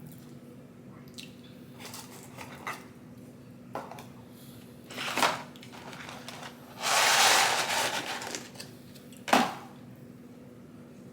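Food and packaging handled during a McDonald's meal: scattered soft clicks and taps, a sharp knock about five seconds in, a loud rustle of about a second and a half a little later, and a last sharp click near the end.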